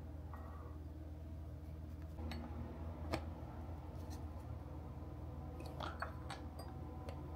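Drinking cups and their vacuum lids being handled: a few light clicks and knocks, the sharpest about three seconds in, over a steady low hum.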